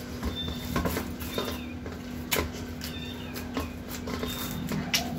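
Hands kneading soft chapati dough in a steel bowl: scattered short squishing and knocking sounds. A bird chirps repeatedly in the background over a steady low hum.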